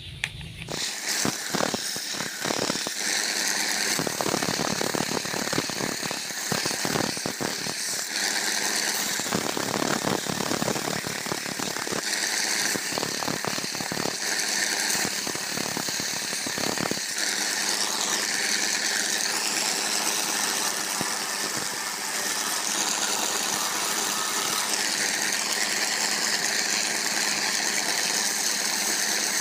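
Electric belt sander starts about a second in and keeps running while a wooden knife handle is pressed against the moving abrasive belt. It rasps irregularly through the first half, then settles into a steadier whir with a faint motor hum.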